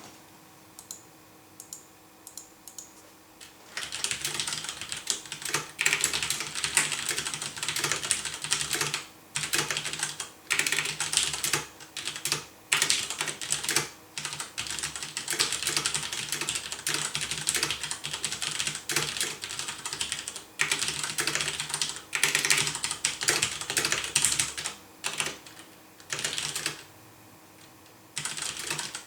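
Typing on a mechanical keyboard with Cherry MX Brown tactile switches, no O-rings fitted and ABS keycaps: fast runs of key clacks broken by short pauses. The first few seconds hold only a few scattered keystrokes before steady typing starts.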